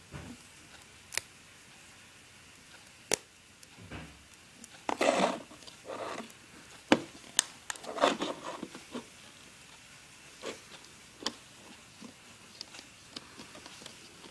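Rubber bands being worked by hand on a plastic peg loom: scattered sharp plastic clicks a few seconds apart, with a few short scraping rubs in the middle.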